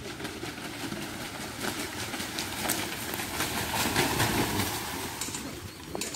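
Water splashing as racing buffaloes charge through a flooded mud track, loudest about two-thirds of the way in.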